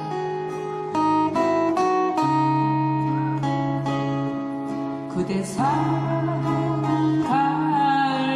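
Several acoustic guitars playing a picked and strummed song intro together, with a voice starting to sing about five seconds in.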